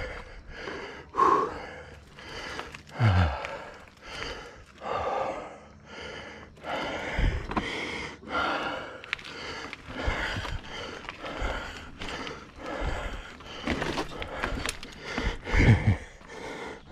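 A mountain biker's heavy, labored breathing from hard pedalling, a loud breath roughly every second, with a few low thumps in between.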